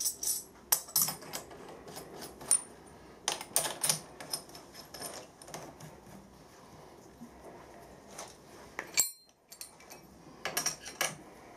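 Steel ER32 collet block, collet nut and vise parts clicking and clinking as they are handled and fitted in a milling-machine vise. The clicks come in short clusters.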